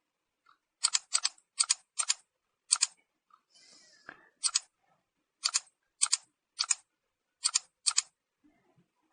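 Computer mouse clicked about a dozen times at uneven intervals, each click a quick press-and-release pair.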